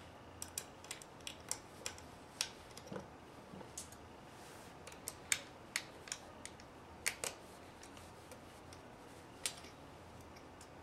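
Hex key turning set screws in a metal busway housing coupler: faint, irregular metallic clicks, roughly two a second, as the key seats and turns in the screws.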